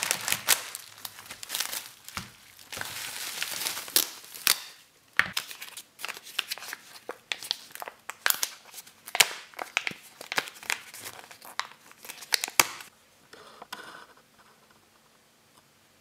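A plastic courier mailer bag crinkling and tearing as it is pulled open by hand, then more crinkling as the packed cards are handled. The crinkling stops about 13 seconds in.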